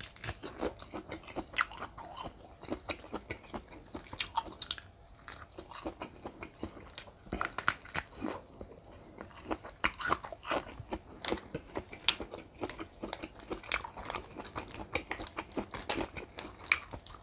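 Chewing and biting grilled giant river prawn meat close to a clip-on microphone: a dense, irregular run of wet smacks and crunchy clicks.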